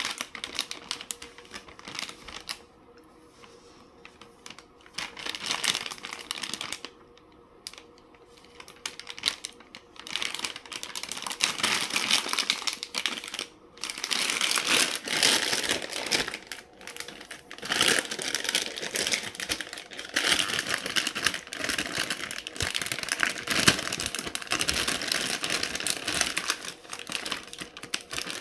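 Crinkling and crackling of a plastic fruit bag being handled and torn open at its top strip. Sparse with pauses for the first third, then louder and nearly continuous.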